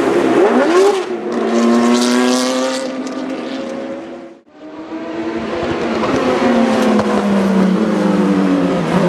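Race car engines at high revs on a circuit: one car's engine note holds and fades over the first half, then after a brief dip in sound another car's engine builds up, its pitch sliding down toward the end.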